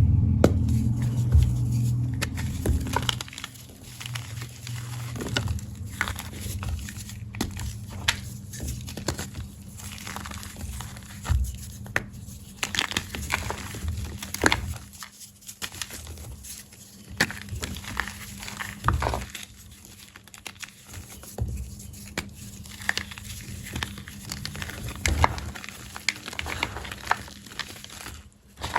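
Blocks of black-dyed gym chalk being crushed, crunching and crumbling in many irregular crackles and snaps. There is a heavier low rumble for the first few seconds.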